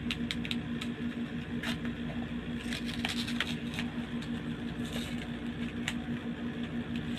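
Paper envelope being opened by hand, giving a scatter of short paper crackles and rustles over a steady low hum.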